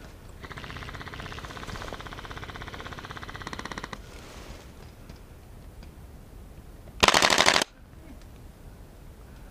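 Airsoft guns firing on full auto: a long rapid burst of shots lasting about three and a half seconds, then, about seven seconds in, a short, much louder burst close by.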